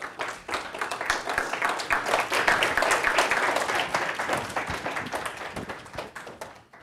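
Small classroom audience applauding. The clapping builds over the first couple of seconds, then thins out and dies away near the end.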